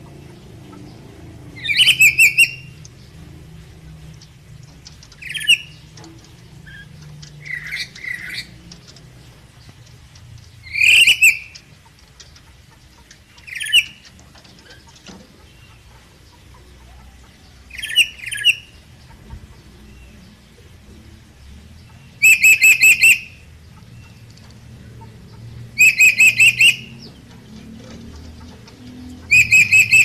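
A lory (red parrot) calling: about nine loud, shrill, screeching bursts a few seconds apart, each under a second long; the last three are rapid stuttering strings of notes.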